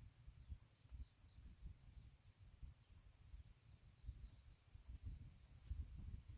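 Faint rice-field ambience: a steady high insect hum, with a run of about ten short, evenly spaced high chirps, about three a second, through the middle, over a low, uneven rumble.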